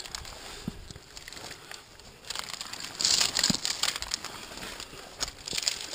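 Rustling and scraping from the climber's gloves and jacket against the rock, with sharp clicks and clinks from the fixed steel chain being gripped. A louder burst of rustling comes about three seconds in.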